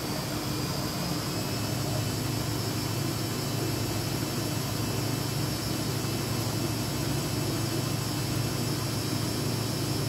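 Front-loading washing machine on its spin cycle, the motor and drum running at a steady speed with a low hum and a faint high whine. The drum is full of suds from too much liquid detergent.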